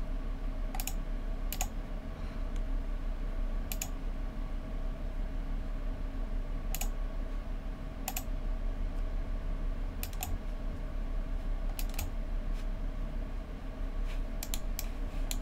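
Sharp, scattered clicks of a computer mouse, a dozen or so, several coming in quick pairs like double-clicks, over a low steady hum.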